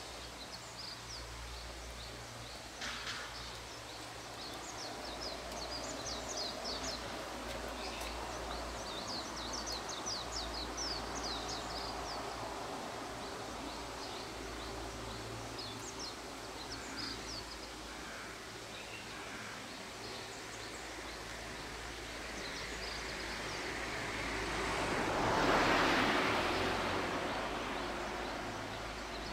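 Outdoor ambience of small birds chirping in quick runs of short high notes over a steady low rumble. About 23 seconds in, a broad whooshing noise swells, peaks and fades over several seconds.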